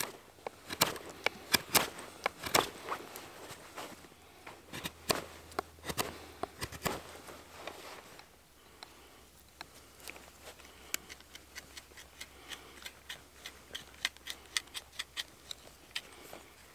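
Knife whittling a wooden stick, blade strokes shaving off wood: sharp, irregular cuts, louder and more spaced in the first half, then lighter, quicker shaving ticks from about halfway on.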